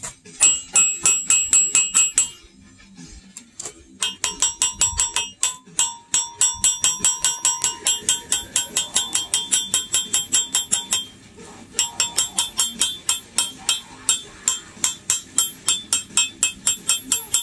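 Fast, regular metallic clicking, about six or seven strokes a second, each with a bright ringing tone, from hand-tool work on a bare Subaru EJ25 engine. It comes in runs, stopping for about two seconds near the start and briefly again about eleven seconds in.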